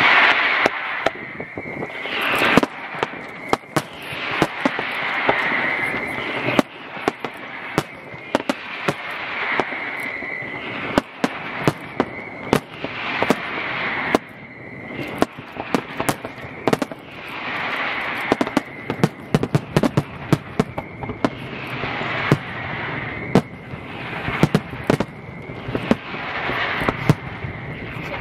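Fireworks display: shells bursting in rapid sharp bangs and crackles, coming in waves every few seconds.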